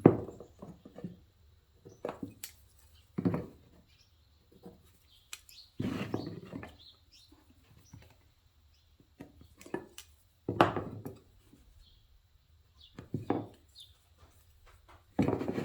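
Wooden workpieces and marking tools being handled on a workbench: a series of separate knocks, taps and clatters a second or two apart, with a longer scrape about six seconds in. Faint bird chirps come from the background.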